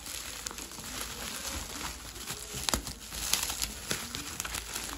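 Packaging crinkling and rustling as it is handled, with many small irregular crackles and clicks.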